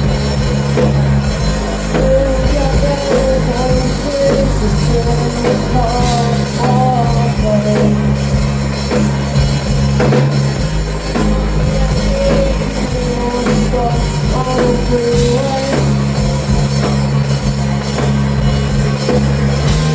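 A live rock band playing loud, with a drum kit, heavy sustained bass notes and a wavering sung vocal line.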